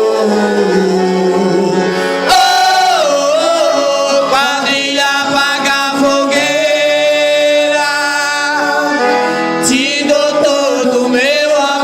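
Music: a male voice singing long held notes with vibrato over instrumental accompaniment.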